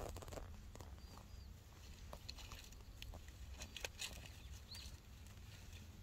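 Small knife cutting young mugwort shoots at ground level, making scattered sharp ticks among the rustle of the leaves being gathered by gloved hands. A few short bird chirps sound faintly, twice near the start and once near the end.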